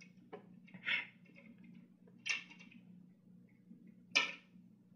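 A cat crunching dry kibble from an automatic feeder's bowl: four short, irregularly spaced crunches over a low steady hum.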